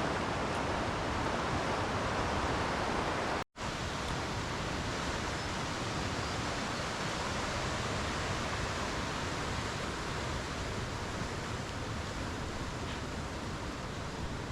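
Steady rush of flowing river water, cut off briefly about three and a half seconds in, then continuing.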